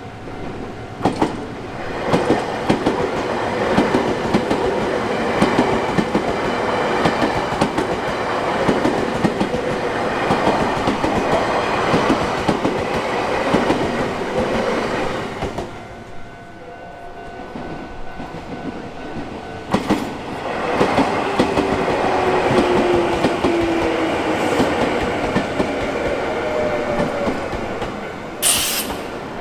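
Trains passing over a level crossing on the Nankai Koya Line: wheels clattering over the rail joints in two passes with a short lull between them, and a falling whine during the second pass. A crossing warning signal sounds as steady tones underneath, and a short sharp hiss comes near the end.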